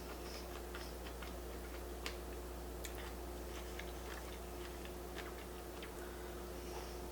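Close-miked chewing of sushi rolls made with cauliflower rice and cream cheese: a scatter of small, irregular wet mouth clicks over a faint steady hum.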